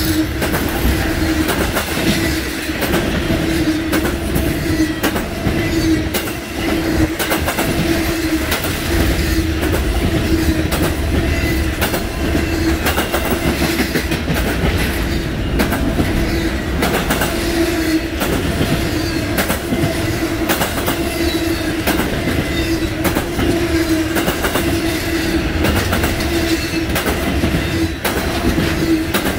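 Freight cars of an intermodal train rolling past close by at speed. The wheels clack over the rail joints with a steady whining tone under the rumble of the train.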